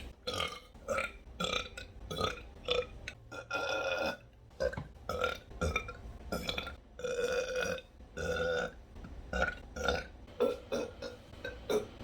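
A woman burping over and over in quick succession: many short belches, about one or two a second, with a few longer, drawn-out ones in between.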